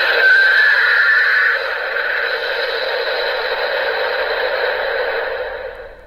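Kaenken Rekka toy sword's electronic sound effect playing through its built-in speaker: the long special sound it plays for its twentieth book reading. It is a continuous sound, louder for about the first second and a half, then steady, fading out near the end.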